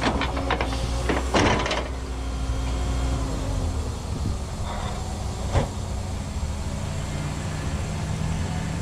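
Cat 314E excavator's diesel engine running under load while its ripper tooth scrapes and cracks through hard blue stone for the first couple of seconds, then the engine runs on steadily with a single sharp knock a little past the middle.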